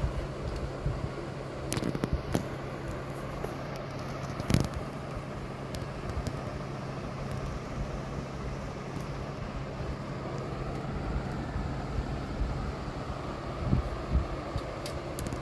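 Steady low machine hum, with a few short knocks and taps as kittens play on a hard floor; the sharpest tap comes about four and a half seconds in.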